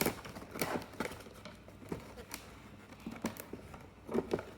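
Irregular light clicks and rustles of a plastic dinosaur toy figure and its packaging being handled while its tail is still caught in the packaging.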